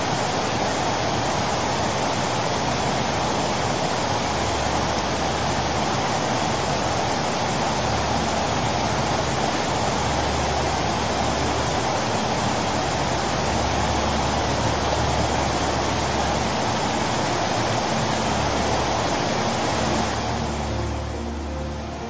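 Roar of a river in flood, fast muddy water rushing and churning in a steady noise with a low rumble underneath. It softens about twenty seconds in.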